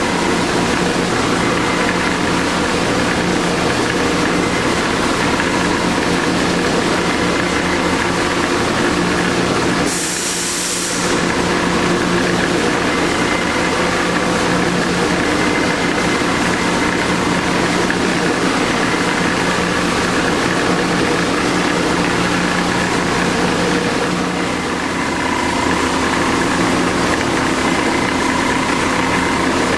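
Clausing 5902 variable-speed lathe running without cutting: a steady motor and drive hum made of several held tones. A short hiss breaks it about ten seconds in, and the tones shift slightly near the end.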